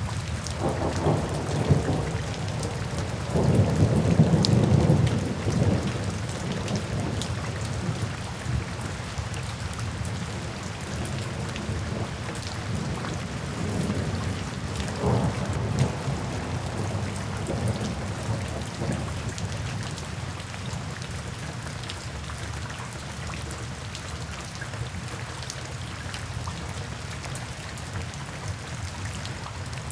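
Steady rain with rumbles of thunder, the loudest about four seconds in and fainter ones around fifteen and nineteen seconds.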